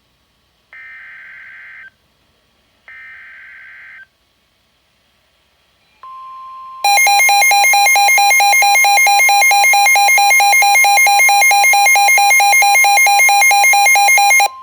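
Emergency alert broadcast tones for a severe thunderstorm warning: the last two of three one-second bursts of screeching SAME data header, then a steady attention tone about 6 s in, joined about a second later by a much louder, rapidly pulsing alarm tone that cuts off near the end.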